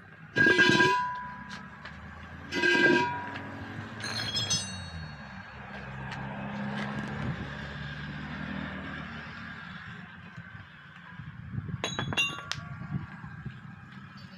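Steel truck wheel rims clank twice, each hit with a ringing metallic note, as they are handled and set down, with a few lighter metallic clinks near the end. A motor vehicle is heard passing in between.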